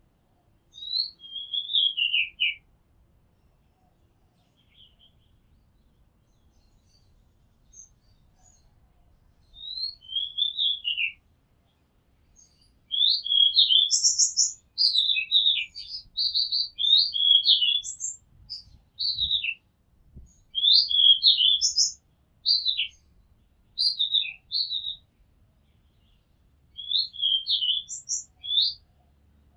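Oriental magpie-robin singing: a falling whistled phrase about a second in, another about ten seconds in, then a long run of varied, fast whistled notes and chirps with short gaps.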